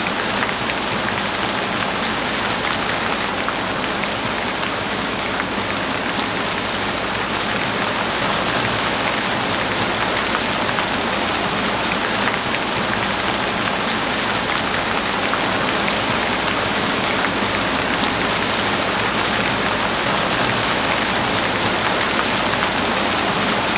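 Recorded sound of steady heavy rain: an even, unbroken hiss with no separate drops or breaks.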